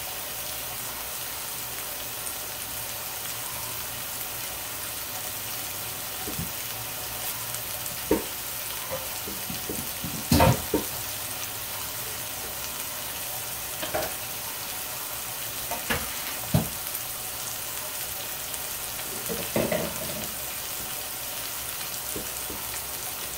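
Pork chop searing in a hot cast-iron skillet, a steady sizzle throughout. A few sharp knocks and clatters of kitchen things come every couple of seconds; the loudest is about ten seconds in.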